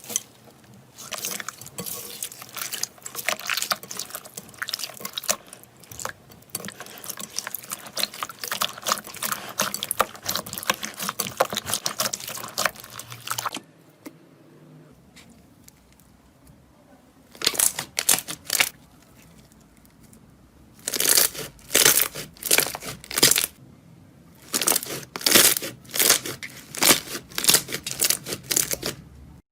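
Slime being squeezed and stretched by hand, crackling and popping densely for about the first half. After a quiet spell it is pressed in rhythmic series of short bursts, about two a second, near the end.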